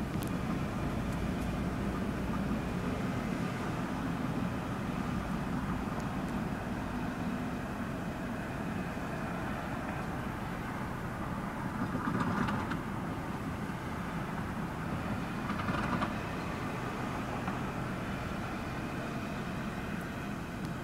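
LIRR DE30AC diesel-locomotive train standing at the station, its engine running in a steady low drone. Two brief louder swells come about twelve and sixteen seconds in.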